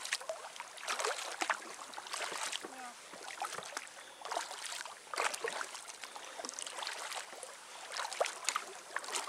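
Kayak paddling: the paddle blades dip and splash in the lake water and drip, in irregular splashes about once a second.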